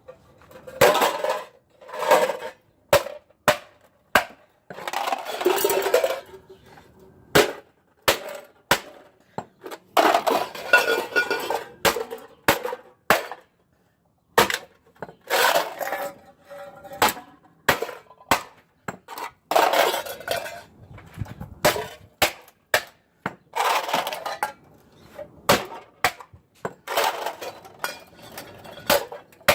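Empty aluminum cans being smashed flat one after another: repeated sharp metallic knocks, with a burst of crunching every few seconds.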